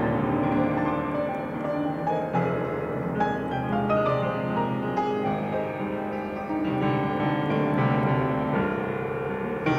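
Solo piano playing an improvised piece: sustained chords with new notes struck every second or so.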